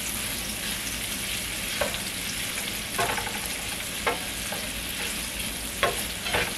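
Onion strips sizzling as they sauté in hot beef grease from fried hamburger patties, a steady hiss. A few short scrapes of a utensil against the pan break in as the onions are stirred.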